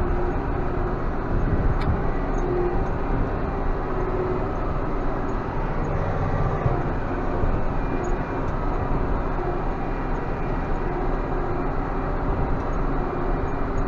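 Large farm tractor's engine running steadily under load while pulling a disc harrow across a dry field, heard from inside the cab.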